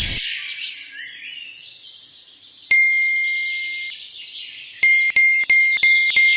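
Birds chirping steadily, with a clear bell-like chime struck once about three seconds in and left to ring, then struck five times in quick succession near the end.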